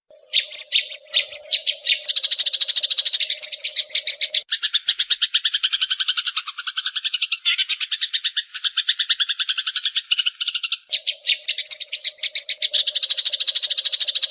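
Songbird recording: a fast, high-pitched chattering trill of many notes a second that starts abruptly. A steady low hum sits under it and drops out for a stretch in the middle, and the song changes abruptly twice, as at edits in a looped tutoring track.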